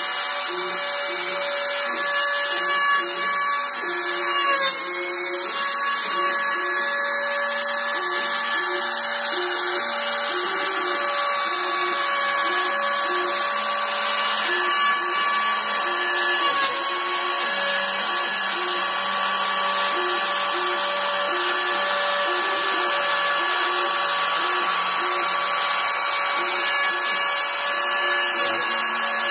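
CNC router milling: the spindle whines steadily, dipping briefly in pitch twice, while the axis stepper motors hum in short, changing low tones that start and stop as the machine moves.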